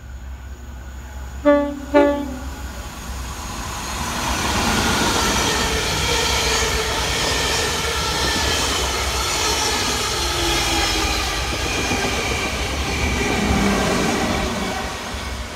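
Train horn sounds two short blasts about a second and a half in. Then a train passes close by: a loud rumble of wheels on rail with wavering squeals, easing off near the end.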